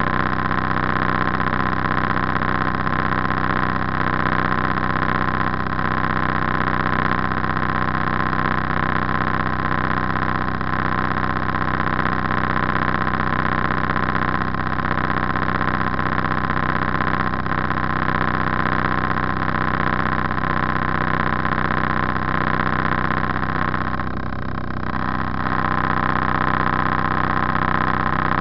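Motor cruiser's engine running steadily as the boat cruises along the river. The drone eases briefly near the end, then comes back to the same level.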